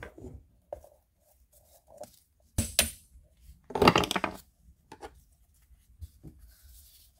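Metal hand tools set down and a greasy CV joint handled on a workbench: scattered light clicks and knocks, with two louder clatters about two and a half and four seconds in.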